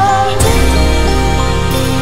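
Song music: sustained chords, with a wavering held note ending and a new chord coming in about half a second in.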